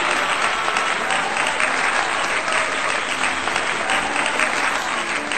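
Applause from a crowd: a dense, steady patter of many hands clapping, with faint music underneath.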